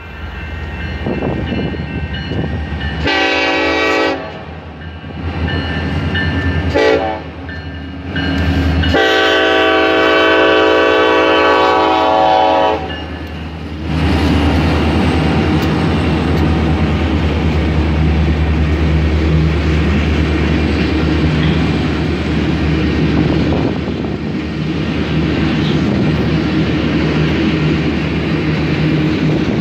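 Freight train's diesel locomotive horn sounding for a grade crossing: a blast about three seconds in, a brief one around seven seconds, then a long one of about four seconds. After that comes the steady low rumble and clatter of tank cars and covered hoppers rolling past.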